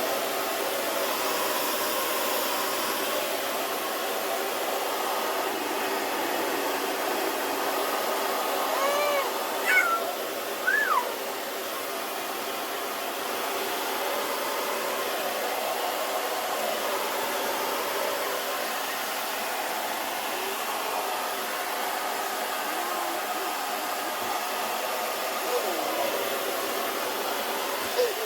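Hand-held hair dryer switched on at cool, high, blowing steadily into a soft bonnet attachment, and switched off at the very end. About nine to eleven seconds in, and again faintly later, a small child's short high squeals rise over it.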